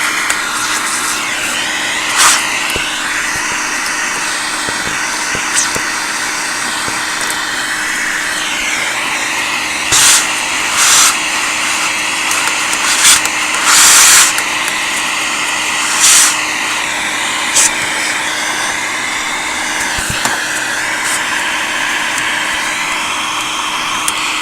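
Vacuum cleaner running steadily with a constant hum, sucking dust out of an old tube radio's chassis. About seven short, louder hissing rushes break through, the biggest about midway.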